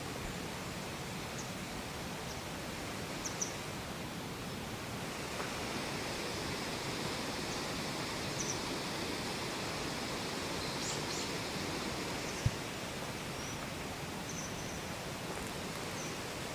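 Steady rush of flowing water, with a few faint high chirps over it and a single brief low bump about twelve seconds in.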